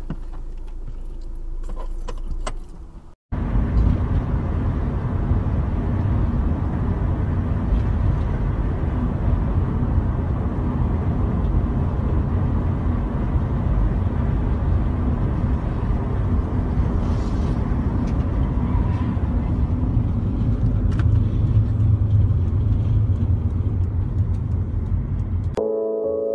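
Road and wind noise inside a moving car: a steady low rumble that starts suddenly after a short gap of silence about three seconds in. Before the gap there is a quieter steady hum, and piano music starts just at the end.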